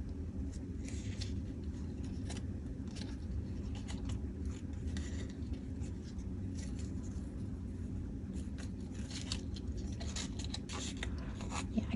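Crafting handling noise: short rustles, snips and small clicks of scissors, chiffon fabric strips and paper tags being worked by hand, coming thicker near the end, over a steady low hum.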